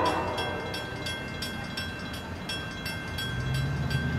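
Railroad crossing bell ringing rapidly, about four strikes a second, while a diesel locomotive's horn trails off at the start. From about three seconds in, the low rumble of the approaching CSX C40-9W locomotive grows.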